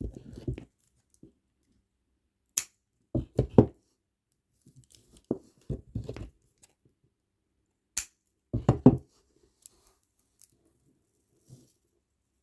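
Scissors snipping the old string of a plastic bead bracelet: two sharp snips, each followed by short bursts of rustling as the bracelet is handled.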